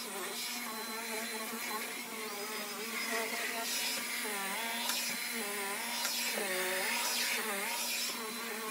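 Cordless stick vacuum running on couch upholstery, a steady whine and hiss whose pitch dips and recovers several times in the middle as the nozzle is worked over the cushions.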